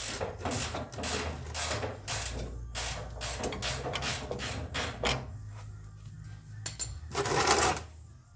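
Ratchet wrench being worked in short strokes, about two a second for some five seconds, followed by one longer, louder burst near the end.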